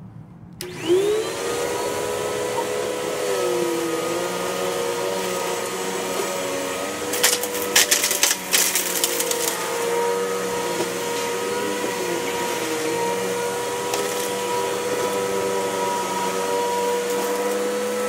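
Tornado CK14/1 commercial upright vacuum cleaner switched on: the motor whine rises as it spins up within about a second, then runs steadily while vacuuming carpet. A short run of sharp clattering clicks comes about seven to nine seconds in.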